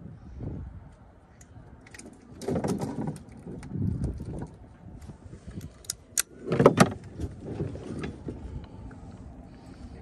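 Irregular knocks, rattles and clicks of fishing gear and a hard plastic cooler being handled in a small plastic boat, with a spinning rod and reel moved about and the cooler lid opened. The loudest clatter comes about two-thirds of the way in.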